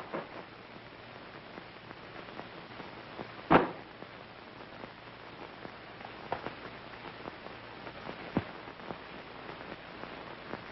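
Steady hiss and crackle of an old optical film soundtrack, with one loud pop about three and a half seconds in and a few fainter clicks later.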